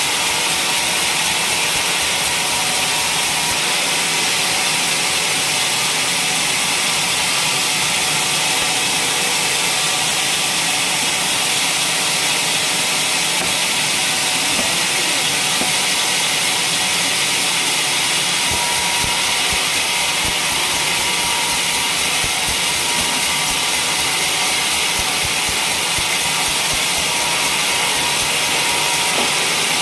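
Sawmill blade cutting through waru gunung (mountain hibiscus) timber: a steady, high, hissing whine of the saw in the wood that runs on without a break.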